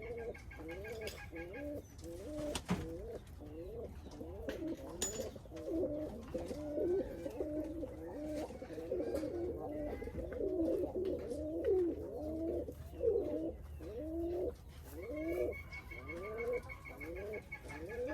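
Several pigeons cooing, a steady overlapping run of low rising-and-falling coos, with a single sharp click about three seconds in.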